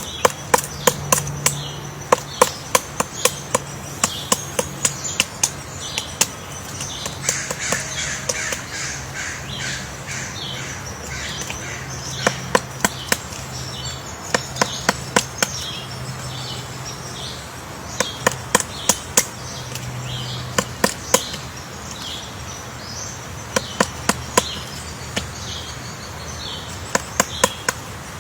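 Woodpecker drilling at wood: irregular runs of sharp taps, about three or four a second, broken by pauses. Other birds call with short, repeated high chirps throughout.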